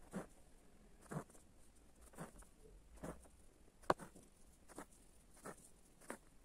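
Hand embroidery: a needle pushed through fabric drawn taut in a wooden hoop and silk thread pulled through after it, satin stitches laid side by side. Soft taps and scratches come about once a second, with one sharper click a little under four seconds in.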